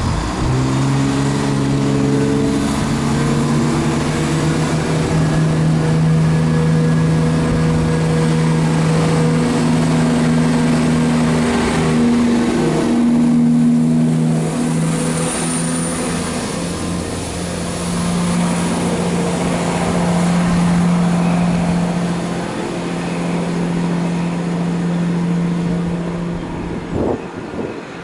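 CrossCountry Class 170 Turbostar diesel multiple unit moving past under power, its underfloor diesel engines running loud and steady. The engine note rises sharply at the start, dips around the middle and picks up again.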